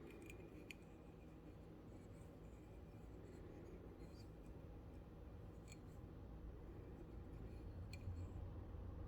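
Near silence: faint steady low hum with a few faint clicks, two right at the start and single ones later on.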